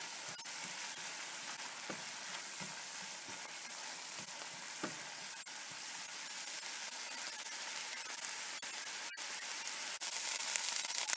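Onions and a ginger-garlic-chili-cumin paste sizzling in hot oil in a stainless steel pan as the masala is fried to cook off its raw taste, stirred now and then with a spatula. The sizzle is a steady hiss that gets louder, with sharper crackling, about ten seconds in.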